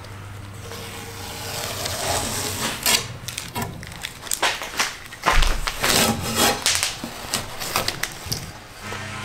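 Blue painter's tape being peeled off a rocket body tube beside fresh epoxy fin fillets and crumpled in gloved hands: irregular crackling and ripping with sharp snaps, busiest in the middle.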